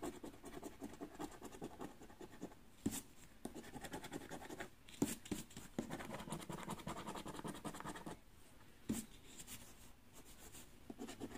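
A coin scratching the latex coating off a paper scratch card in quick rubbing strokes, with a few sharper clicks. It is busiest in the middle and lighter near the end.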